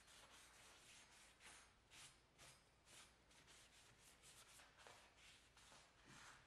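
Faint rubbing of a cloth wiped back and forth over the steel of an axe head, in quick repeated strokes.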